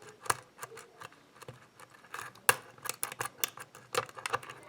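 Metal lock pick clicking and tapping against the pins inside a pin-tumbler lock's keyway as it probes each pin under tension, in an irregular run of small clicks with one sharper click about two and a half seconds in.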